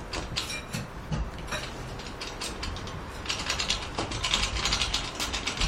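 Hand-cranked boat trailer winch being wound in under load, its ratchet pawl clicking rapidly; the clicking gets quicker and louder about three seconds in.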